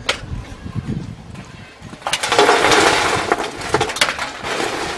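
Glowing charcoal embers poured onto a thin crumpled metal tray: a dense rattling clatter starts about two seconds in and is loudest for about a second, then thins into scattered clinks.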